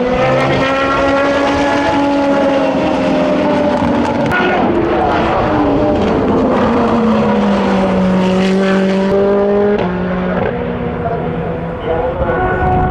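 Super Formula SF23 single-seater's Honda 2.0-litre turbocharged four-cylinder engine running at speed on track. Its note slides down in pitch in the middle and steps at a gear change about ten seconds in.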